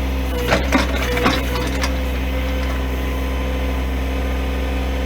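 John Deere compact tractor's diesel engine running steadily under the backhoe, with a few sharp cracks and knocks of wood between about half a second and two seconds in as a big pine root is worked loose.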